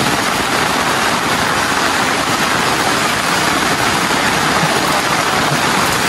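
Rain falling steadily, a continuous even hiss.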